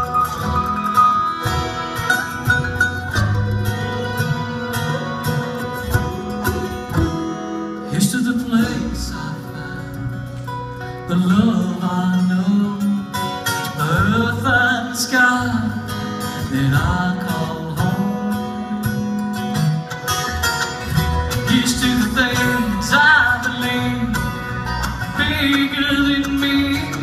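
Bluegrass band playing live on acoustic string instruments, with plucked strings throughout.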